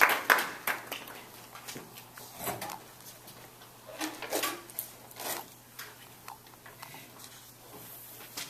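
Scattered clicks, knocks and brief rustles in a small room, over a steady low hum.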